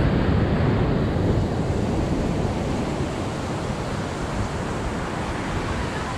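Pacific surf breaking and washing up a sandy beach, with wind on the microphone. It is loudest near the start and eases off gradually.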